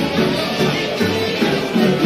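Tamburica band playing a lively folk dance tune: plucked strings over a bass line that steps from note to note.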